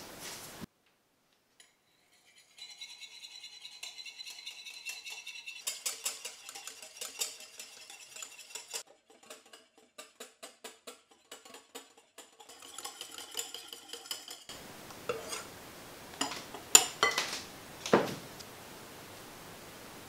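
Wire balloon whisk beating whipping cream in a glass bowl, its wires clicking against the glass in rapid strokes, slowing for a while, then speeding up again. Near the end come a few sharp clinks of a utensil against the glass bowl.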